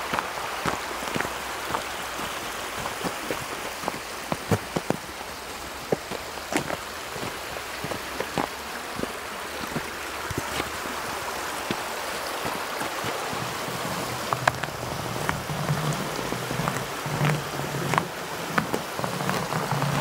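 Steady rushing of a mountain stream running under snow and ice, with many scattered sharp clicks and crunches over it. Near the end a low rumble comes and goes.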